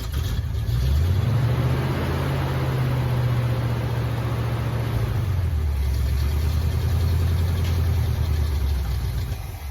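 1985 Chevrolet C10 pickup's engine running steadily during a Seafoam treatment; its speed drops about halfway through, and the sound falls away at the end.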